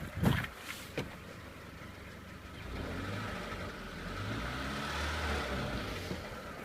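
Car engine running, with two sharp knocks in the first second, then swelling in level from about two and a half seconds in and holding there. The owner suspects the knock comes from the crankshaft pulley.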